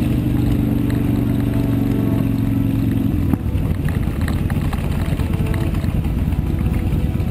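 Motorcycle engine running at a steady speed. About three seconds in the sound changes abruptly to a rougher, lower rumble.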